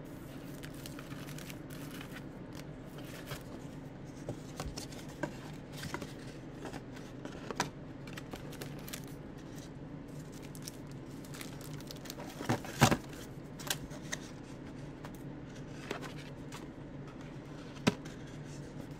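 Handling of paper and cardboard: a small cardboard trading-card box is torn open and its flaps folded back, with light rustling and scattered taps and snaps, the sharpest about two-thirds through and just before the end. A steady low hum runs underneath.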